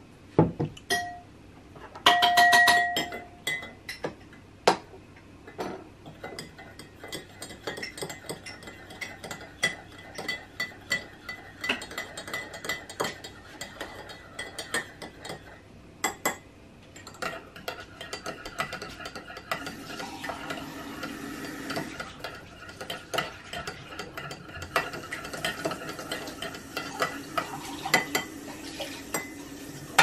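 Metal teaspoon stirring coffee in enamel mugs, with many small quick clinks against the mug. A louder ringing clink comes about two seconds in.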